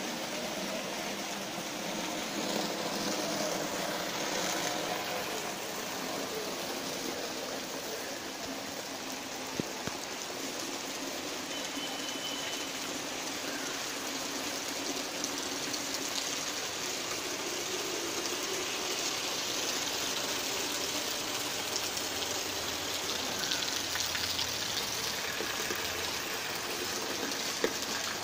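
Steady rain falling on foliage, puddles and wet ground, mixed with the rush of muddy rainwater running along a drainage channel.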